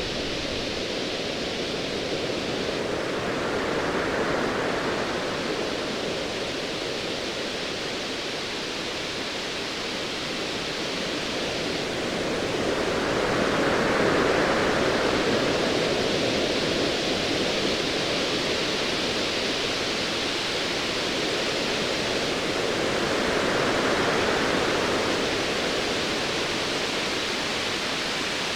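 Ocean waves washing in as a steady rush of noise, swelling about every ten seconds.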